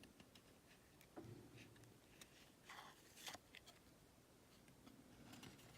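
Near silence, with a few faint clicks and soft scrapes of trading cards being handled.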